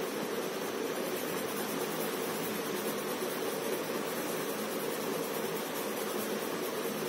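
Steady, even background hiss with no distinct strokes or events.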